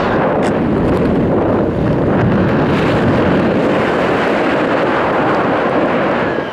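Steady rush of air blowing hard across a skydiver's camera microphone in flight.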